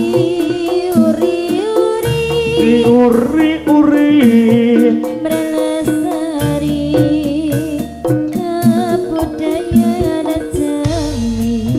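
Javanese jaranan gamelan music: a wavering melody line over held pitched tones and frequent sharp percussion strikes.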